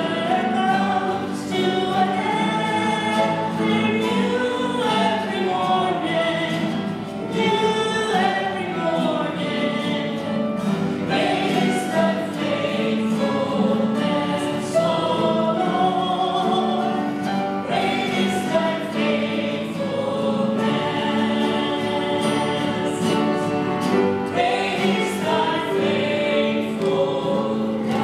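A worship hymn sung by voices with acoustic guitar accompaniment, the melody moving continuously over steady strummed chords.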